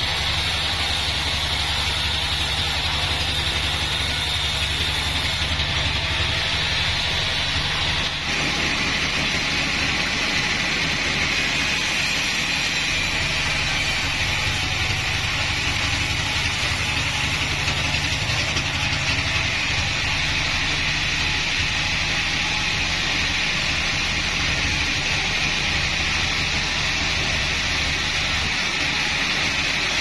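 Band sawmill (Bandsaw36) running with its blade ripping lengthwise through a mahogany log: a steady machine drone under a high, even whine, whose pitch steps down about eight seconds in.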